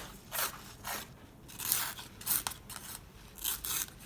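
A Pro-Tech Malibu flipper knife being handled: about five short scraping, rubbing strokes of the blade and metal handle, with a light click or two.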